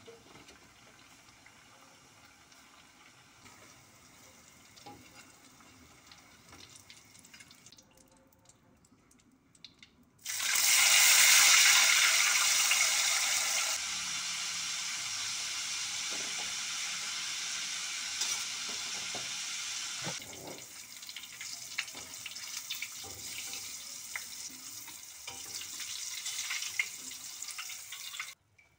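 Tofu frying in hot oil in a wok: a sudden loud sizzle about ten seconds in, settling within a few seconds to a steady frying hiss that later turns quieter and crackly with small pops. Before the sizzle there are only faint clinks.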